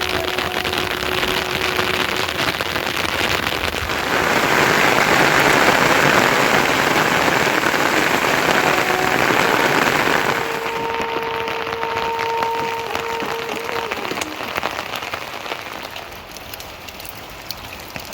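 Rain falling, heavier for several seconds about four seconds in, then easing off.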